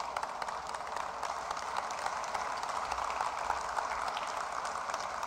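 An audience applauding steadily: the dense, even clatter of many hands clapping.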